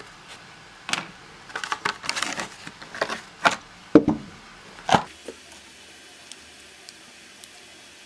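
Handheld RJ network-cable crimping tool being handled and turned over: a string of sharp clicks and knocks for the first few seconds, then only a few faint ticks.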